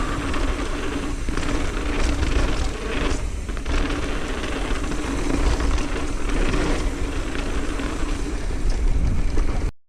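Steady wind rush and trail noise from a mountain bike ride, with a heavy low rumble, cutting off abruptly near the end.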